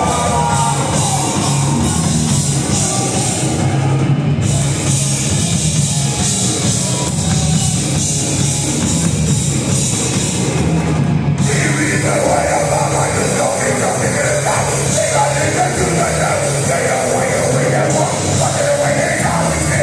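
A punk rock band playing live and loud, heard from within the crowd: distorted guitars and drums. The music fills out about twelve seconds in.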